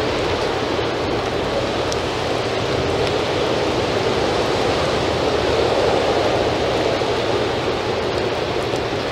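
Steady rain falling on wet paving, an even, unbroken wash of sound.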